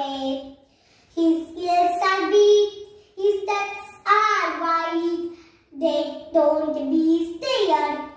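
A young girl reciting an English poem about animals in a sing-song, half-sung voice. Her phrases are short, with brief pauses between them.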